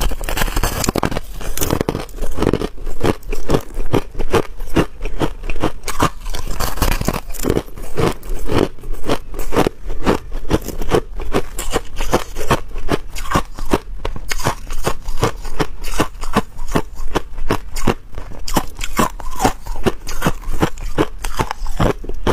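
Hard crushed ice being bitten and chewed: a steady run of sharp crunches and crackles, several a second, without a break.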